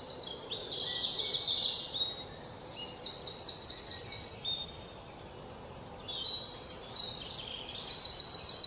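Songbirds chirping: rapid trills of short high notes from several birds overlapping, with a brief lull about five seconds in.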